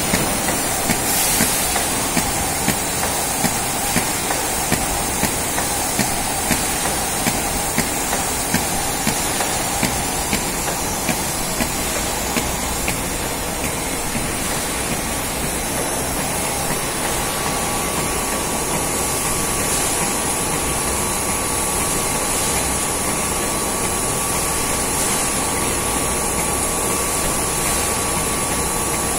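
Water-bottling plant machinery running: a steady mechanical din with hiss, and regular clicks for the first dozen seconds or so. A faint steady high tone joins a little over halfway through.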